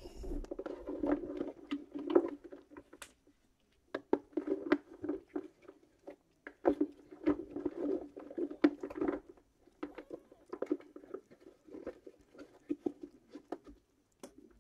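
A cat grooming close to the microphone: wet licking and nibbling sounds in irregular runs of one to three seconds, with short pauses between.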